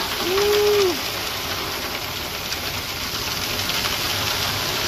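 Hose spraying a jet of water onto a concrete mixer truck's drum opening and chute, a steady hiss and spatter of water on metal as concrete and rocks are washed off, with the truck's engine running underneath.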